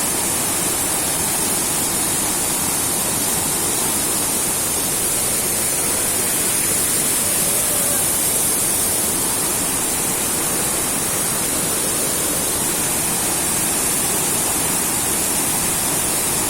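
Waterfall: a steady rush of falling water with a strong high hiss.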